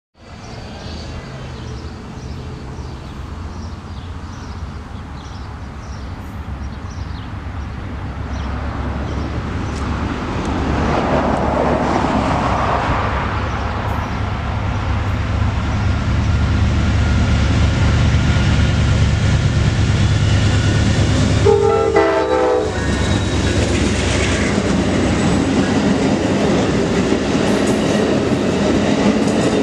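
Amtrak Sunset Limited passenger train approaching and passing: a low diesel locomotive rumble grows steadily louder, a short horn blast sounds about three-quarters of the way through, then the Superliner passenger cars roll past at speed.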